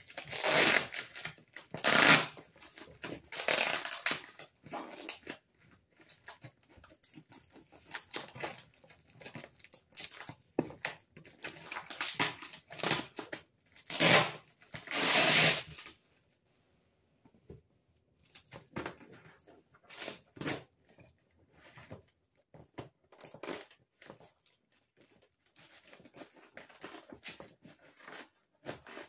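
Scissors cutting and tearing through the packing tape and plastic wrap on a cardboard box: irregular bursts of ripping and crinkling. The loudest rips come near the start and again about fourteen seconds in, followed by a short lull and then softer snips and crinkles.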